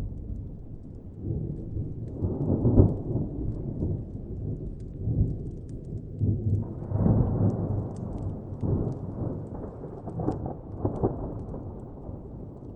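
Distant thunder rumbling and rolling in several swells, the loudest about three seconds in, over faint crackles from a fire.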